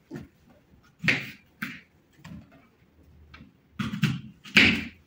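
Kitchen knife cutting through whole apples and striking a plastic cutting board: a series of short, crisp cuts and taps at irregular intervals, the loudest near the end.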